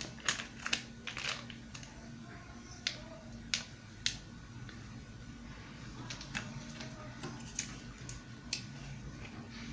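Scattered light clicks and taps of objects being handled, about a dozen spread irregularly, over a faint steady hum.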